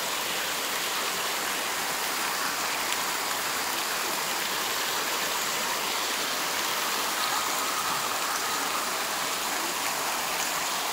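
Warm hot-spring water pouring over rocks and running through a shallow stream, a steady rushing splash.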